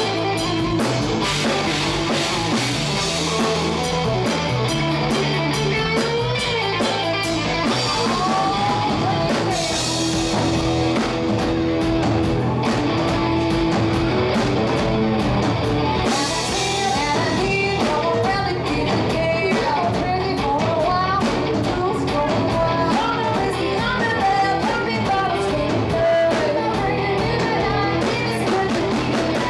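A live rock band playing: electric guitars, bass guitar and a drum kit, with women singing lead.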